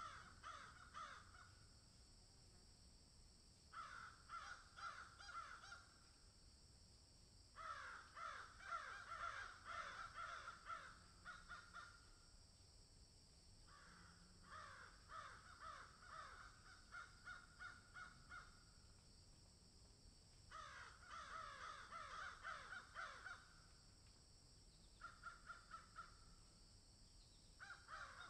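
A group of crows cawing in bouts of rapid, overlapping calls, about seven bouts with short pauses between them, over a steady high hiss.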